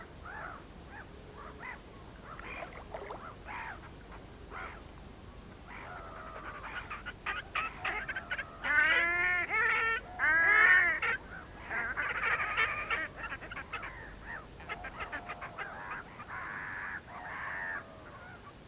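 Whooper swans honking, with the loudest run of bugling calls in the middle, among other birds calling.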